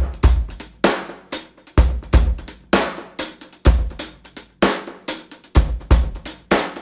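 Background music: a drum kit playing a steady beat on its own, with kick drum, snare, hi-hat and cymbals striking in a regular rhythm.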